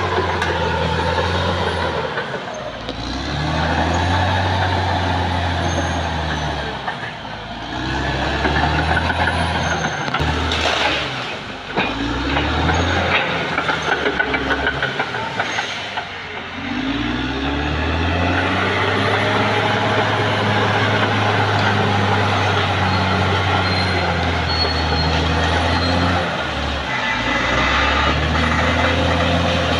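Caterpillar D6R XL bulldozer's diesel engine running under load as it pushes through trees and brush. The revs dip and rise again several times, and a run of sharp knocks comes about eleven to fourteen seconds in.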